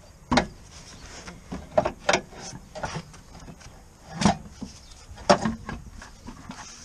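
A manual gearbox being rocked and worked free of the engine, clunking and knocking as its casing shifts; about eight irregular knocks, the loudest near the start and about four and five seconds in.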